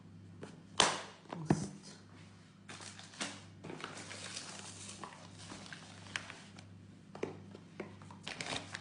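Plastic lunch box lid snapping shut with a sharp click about a second in and a second click soon after, then soft rubbing and handling of the plastic box, with a few light clicks and rustling near the end.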